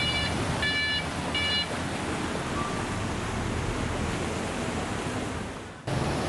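Steady rushing noise of wind and flowing floodwater, with a vehicle horn beeping in short repeated taps during the first second or so. Near the end the noise fades for a moment and comes straight back.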